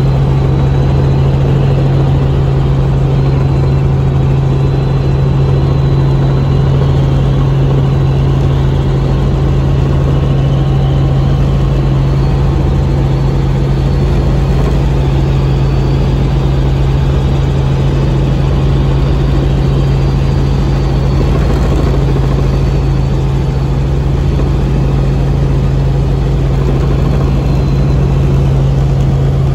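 Helicopter in steady cruise flight heard from inside the cabin: a loud, even drone of rotor and turbine with a strong low hum and a faint high whine.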